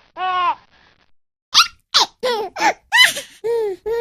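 A young child's high-pitched voice giggling and squealing: one drawn-out syllable, a pause of about a second, then a quick run of short squeaky laughs.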